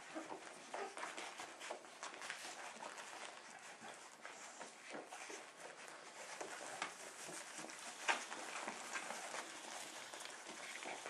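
A litter of young puppies nursing and jostling on their mother: faint, irregular smacking and rustling with small puppy noises, and a sharper click about eight seconds in.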